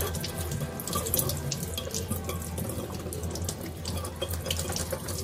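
Tap water running steadily into a kitchen sink while oranges are washed under it, with scattered small knocks and splashes from handling them.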